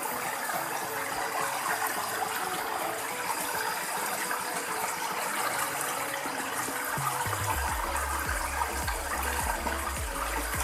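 Water flowing in a steady, gushing rush. A low hum with a regular pulse joins about seven seconds in.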